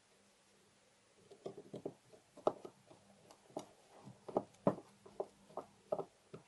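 Light, irregular clicks and taps of small metal parts being handled and fitted into a mortise lock's metal case, starting about a second and a half in.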